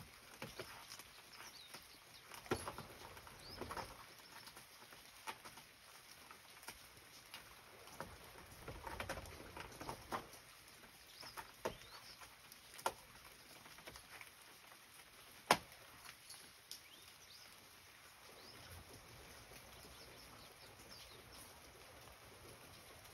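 Quiet garden ambience with faint, scattered bird chirps and occasional small clicks and rustles, the sharpest click about two-thirds of the way through.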